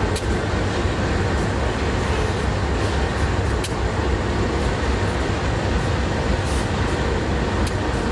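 Freight train of grain hopper wagons rolling past: a steady low rumble of wheels on rail, with a few sharp clicks scattered through it as the wheels run over rail joints and the junction's turnouts.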